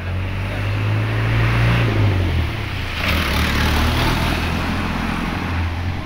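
A small box truck drives past close by, its engine running low and loudest in the middle as it overtakes, then moving away.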